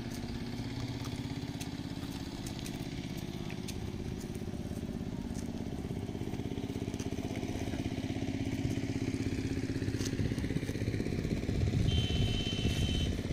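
An engine running steadily, growing louder over the last few seconds, with a short high steady tone near the end.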